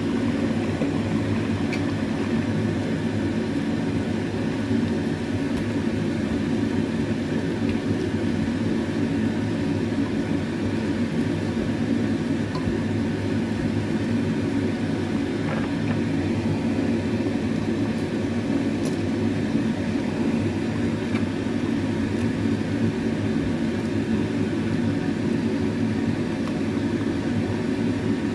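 Steady mechanical whir and hum that runs without a break, with a few faint clicks from a plastic spatula stirring a pot of coconut-milk vegetable stew.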